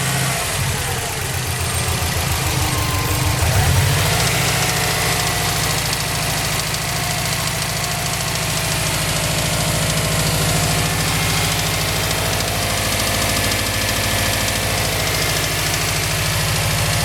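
2005 Subaru WRX's turbocharged flat-four engine, stage 2 tuned, running at idle with a ticking, knocking sound. The engine note shifts in the first few seconds, then settles and runs steadily.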